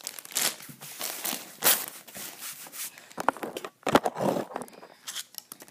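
Clear plastic Lego parts bag crinkling and rustling as it is handled close to the microphone, with a louder bump about four seconds in.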